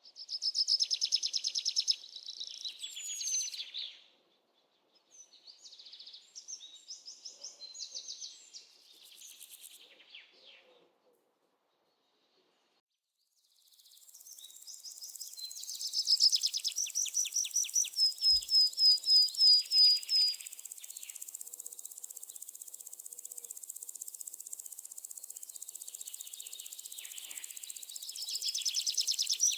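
Small songbirds singing: rapid high trills and runs of quick chirps, cutting in and out with short silences between. From about halfway a steady high hiss sits under the song.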